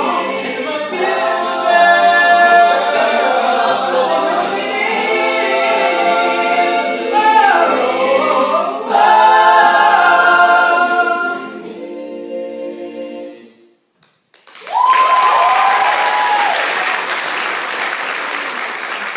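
Male a cappella group singing in close harmony through the end of a song, with a sliding vocal run about eight seconds in, the final chord fading out about thirteen seconds in. After a moment of silence the audience breaks into applause with a whoop, the clapping slowly tapering.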